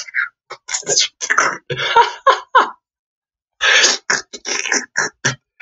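A man laughing breathily in quick, short bursts, with a pause of under a second about three seconds in.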